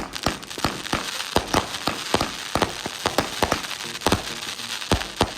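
Consumer fireworks going off: a dense, irregular run of sharp pops and bangs, several a second, over continuous crackling.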